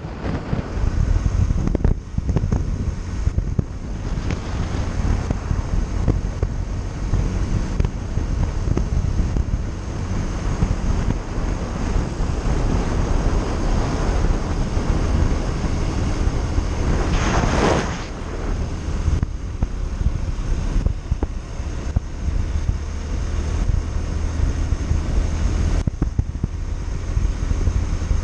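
Wind rushing and buffeting over the microphone of a moving Yamaha Factor 150 motorcycle, a steady heavy low rumble with the ride's road and engine noise under it. About two-thirds through, a louder rushing swell rises and falls within a second or so.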